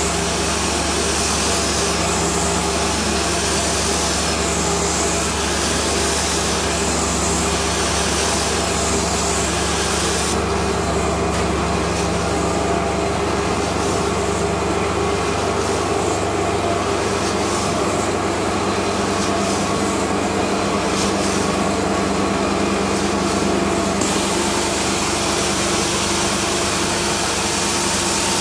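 Truck-mounted carpet cleaning machine running steadily while a Mytee 8300EZ two-jet wand sprays hot water and sucks it back up from the carpet: a continuous rushing of suction and spray over the hum of the machine.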